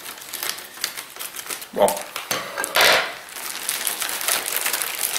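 Plastic courier mailer and paper crinkling and rustling as they are handled, a dense run of small crackles with a louder rustle about three seconds in.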